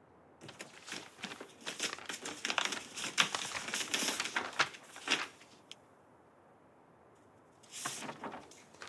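Sheets of paper rustling and crinkling as they are unfolded and leafed through, a run of crackly rustles lasting about five seconds, then a shorter rustle near the end.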